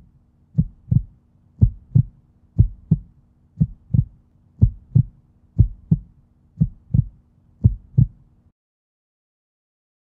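Heartbeat sound effect: pairs of low thumps, about one pair a second, over a faint low hum, stopping about eight and a half seconds in.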